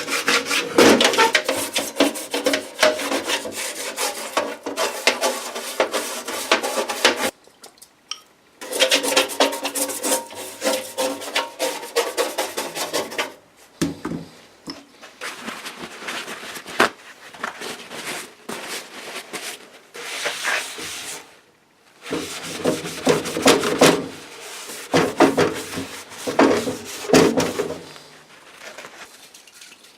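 Rapid, repeated rough rubbing strokes of a hand tool working the surface of an old wheelbarrow, stripping rust and old finish. The strokes stop briefly about seven, thirteen and a half, and twenty-one seconds in.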